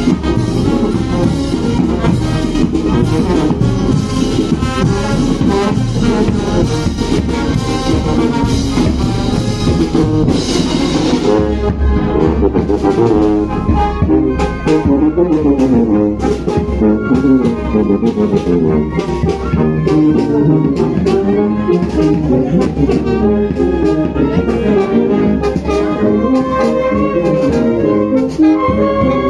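Marching brass band playing as it passes: sousaphones and trumpets over snare drum and a bass drum with cymbal, with the drum strokes standing out more clearly in the second half.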